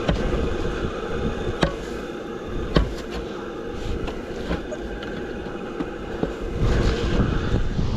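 Wood and coals being handled in the open firebox of an outdoor wood-fired water boiler: a few sharp knocks over a steady rumbling noise with a faint hum.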